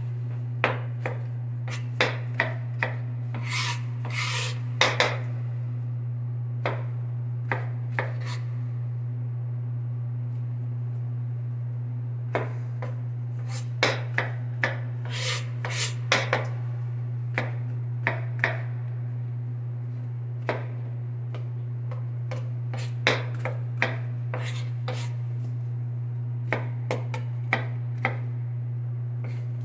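Kitchen knife cutting strawberries on a plastic cutting board: irregular sharp taps and short scrapes of the blade on the board, in clusters with pauses between. A steady low hum runs underneath.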